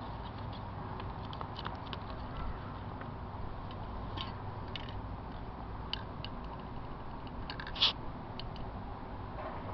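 Handling sounds of spray paint work: scattered light clicks and taps over a steady low rumble, with one short, louder burst about three-quarters of the way through.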